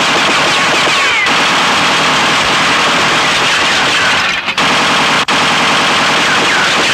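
Action-film sound effect of sustained automatic gunfire: a dense, unbroken rattle of rapid shots with a few brief falling whines, and two short breaks about four and a half and five seconds in.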